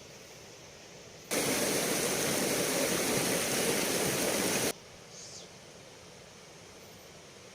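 Loud rushing water of a river that starts abruptly about a second in and cuts off sharply about three and a half seconds later, over a faint steady hiss with a few short bird chirps.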